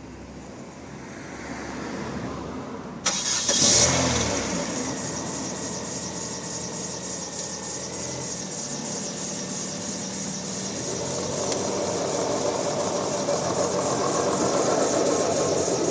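A 2009 Chevrolet Aveo's four-cylinder engine cranks and starts with a sudden burst about three seconds in, then settles and runs steadily. A broad hum builds from about eleven seconds in.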